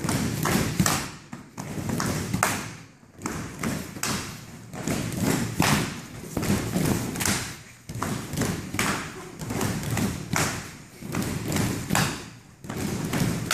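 Taekwondo sparring: kicks and punches thudding against padded chest protectors, mixed with feet slapping the mats, an irregular run of dull thumps and slaps, several a second.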